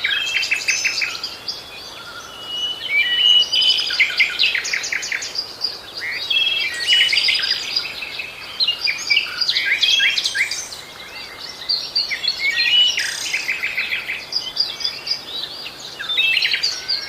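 Bird song: quick chirps and trills in repeated phrases, high-pitched, with short lulls between phrases.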